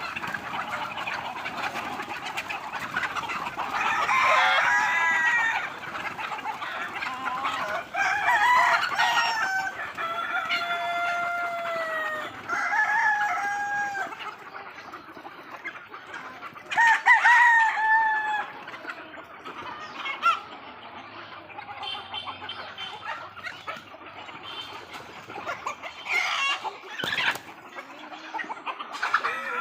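Desi (country) chickens: roosters crowing about six times, some crows running into one another, over the continuous clucking of a flock.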